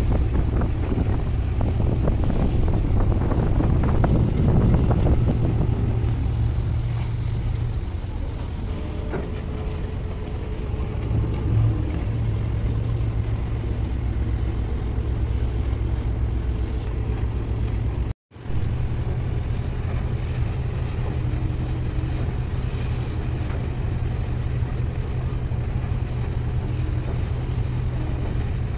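Tugboat's engine running with a steady low drone while under way with a barge on the tow line. Wind and rushing water add a rough noise over it in the first few seconds. The sound cuts out for a moment about eighteen seconds in.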